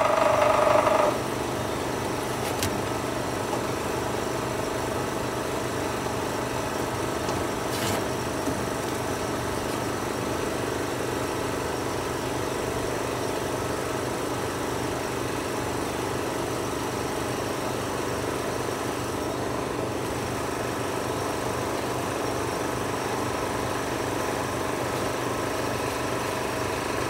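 A steady mechanical hum, like a motor or engine running, after a louder whirring sound cuts off about a second in.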